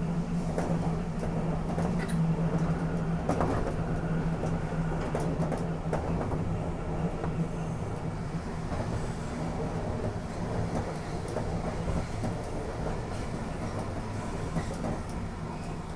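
Randen (Keifuku Electric Railroad) electric train running along the track, heard from on board: a steady low motor hum over wheel-on-rail rumble, with scattered clicks and knocks. The hum fades about halfway through while the rumble carries on.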